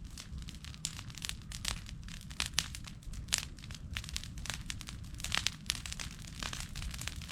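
Bonfire of dry grass and cut branches crackling, with dense irregular sharp pops over a steady low rumble.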